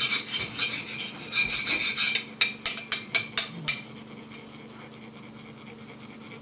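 Metal sand-pouring cone (chak-pur) rasped with a metal rod to shake a controlled stream of coloured sand onto a mandala: a fast run of grating strokes, then about six separate sharp strokes, stopping a little under four seconds in.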